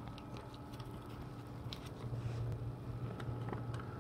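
Steady low electrical hum from a Wittern U-Select-It snack vending machine, with scattered light clicks and ticks from handling near the machine's front.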